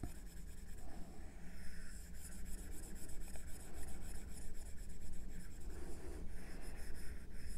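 Stylus tip rubbing and scratching back and forth on an iPad's glass screen in quick, continuous scribbling strokes while a shape is filled in by hand.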